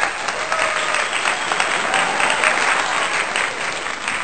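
A crowd applauding, dense clapping with a few cheering voices in it.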